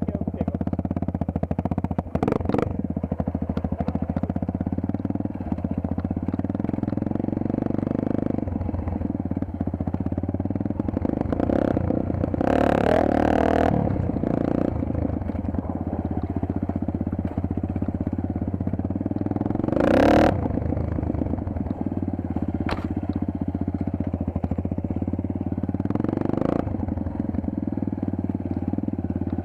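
Single-cylinder four-stroke dirt bike engine running steadily while riding, with a few short rushes of noise about twelve and twenty seconds in.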